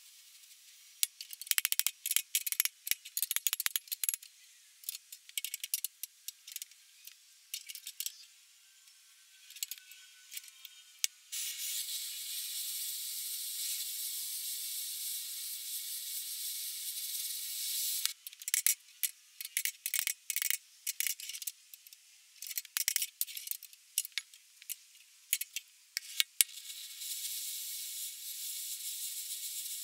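Gas torch worked on the plow's steel frame: spells of rapid crackling and popping alternate with a steady hiss of the flame, hissing alone from about eleven to eighteen seconds in and again near the end.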